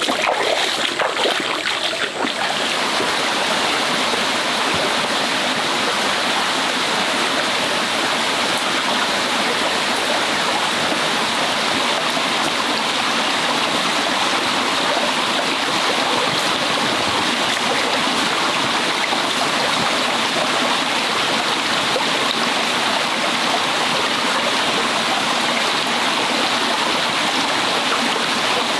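Stream water running steadily over rocks, a continuous rush. A few brief sharp sounds stand out in the first two seconds or so.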